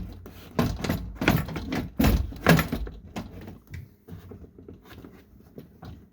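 Plastic inner door panel of a Ford Fiesta door knocking and rattling in a quick series of sharp clacks as it is pulled and worked against a snag on the window regulator. After about three seconds the knocks thin out into lighter clicks.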